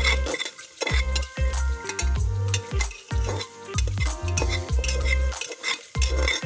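Background music with a steady beat and deep, falling bass notes, over the sizzle and scrape of curry being stirred and fried in a pan.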